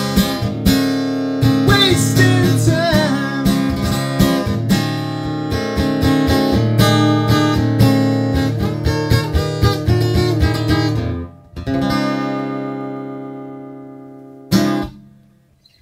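Acoustic guitar strummed in a steady rhythm, closing the song on a final chord about twelve seconds in that rings and slowly fades, with a short sharp strum or knock near the end.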